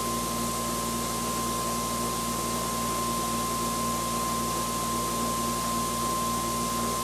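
Electric prime mover and RegenX generator prototype running at a steady speed, with the generator coil on load: a steady hum with a high, even whine over a hiss.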